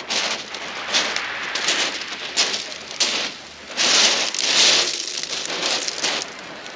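Shingle pebbles crackling and hissing in irregular surges, the longest about four seconds in, with no steady rhythm.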